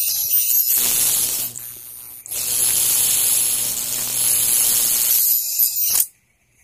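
Homemade plasma test rig running with a loud, steady hiss over a low mains-like hum, dipping briefly about two seconds in, then cutting off suddenly about six seconds in as it is shut down.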